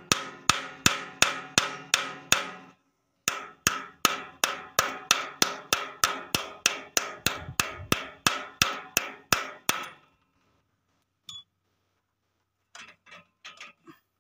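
Quick light taps of pliers on the metal gear lever of a mini power tiller's gearbox, about three a second, each with a short metallic ring, driving the lever back into its seat so it sets firmly. The tapping pauses briefly near the start and stops about ten seconds in, followed by a few faint clicks near the end.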